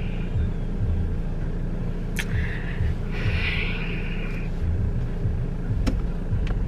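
Car running at idle: a steady low rumble and hum, with two light clicks.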